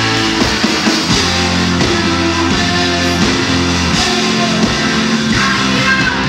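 Live garage-rock band playing loud and steady: distorted electric guitars, bass and drums.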